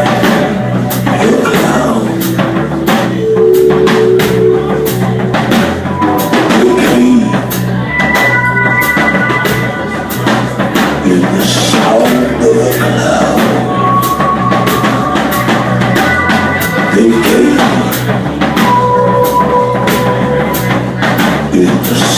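Band music with a drum kit keeping a steady beat and long held notes over it.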